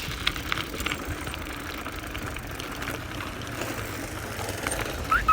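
Bicycle coasting: wind and road noise with faint freewheel ticking. Right at the end, short rising chirps begin.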